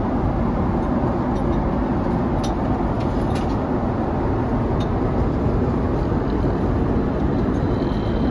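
Jet airliner cabin noise in cruise: a deep, steady rush of engine and airflow noise, with a few faint clicks.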